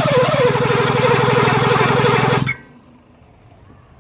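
Starter motor cranking the 1983 Mercedes 380SL's V8 engine, a fast, even turning-over with a whine that drops in pitch in the first half-second and then holds steady. The engine does not fire, and the cranking stops abruptly about two and a half seconds in: a crank-no-start.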